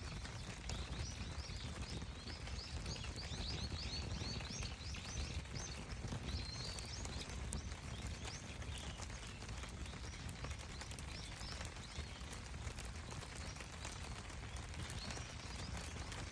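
Outdoor campfire burning, with faint scattered crackles over a steady low rumble. A small bird twitters in a quick series of short high chirps through the first half.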